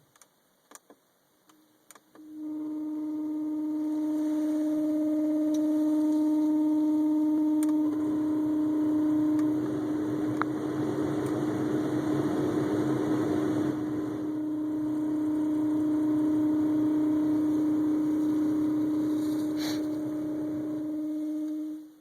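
Seat Ibiza 6K2 heater blower motor running with a steady, loud hum on one droning tone, starting about two seconds in and switching off near the end, with more air rush through the middle. The hum comes from the blower motor's dry bearings, which the owner cures by lubricating them.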